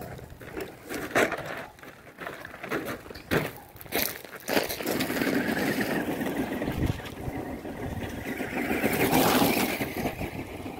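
Radio-controlled car running over gravel, its tyres crunching the stones and its motor whining, getting louder as it comes close about nine seconds in. Before it arrives, a few sharp crunches and knocks of gravel.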